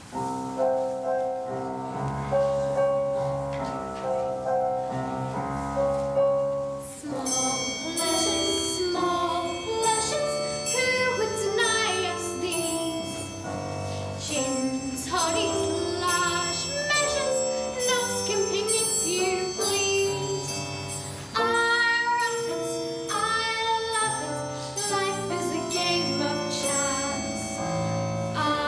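A girl singing a solo song over instrumental accompaniment. The accompaniment plays alone for about the first seven seconds, then her voice comes in and carries the melody to the end.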